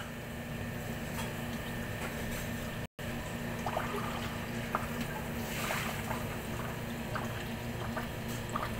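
Ice maker machine running, with a steady low hum and water trickling inside it, and a few faint ticks.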